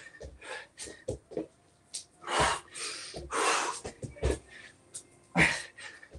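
A man breathing hard during burpees, with three heavy, forceful breaths out, and short light thumps of hands and feet landing on an exercise mat in between.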